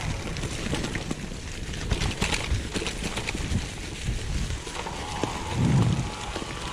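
Mountain bike rolling downhill over a dirt trail covered in dry fallen leaves: tyres crunching through the leaves, with frequent knocks and rattles from the bike over bumps. A louder low rumble comes a little before the end.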